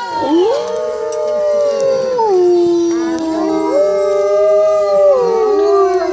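A pack of wolves howling in chorus: several long, overlapping howls at different pitches, holding and sliding down from note to note.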